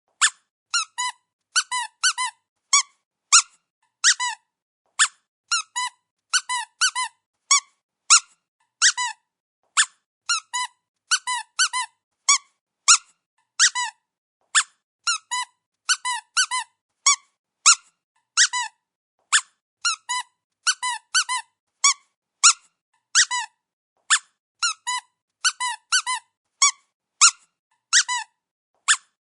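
Squeaky dog toy squeezed over and over: short, high squeaks in quick irregular runs of two to four, with brief silent gaps between them.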